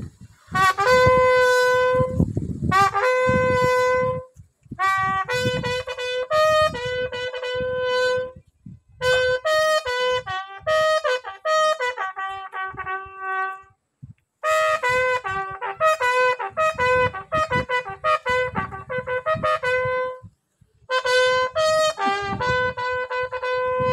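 Army bugle sounding a slow ceremonial call for a military funeral salute: phrases of held and stepping notes on the bugle's few natural pitches, broken by short pauses.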